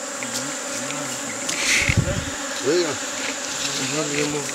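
A swarm of bees buzzing, with single bees passing close by in rising and falling buzzes. There is a low thump about two seconds in.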